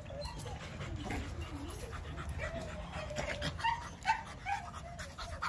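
American pit bull terrier panting quickly and whining, with a run of short rising whines about three to four seconds in.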